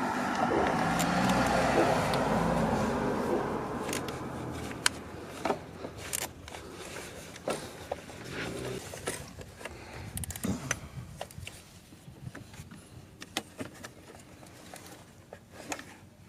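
A car drives past, rising and then fading over the first few seconds, followed by scattered sharp clicks of a ratchet and Torx socket working on small screws.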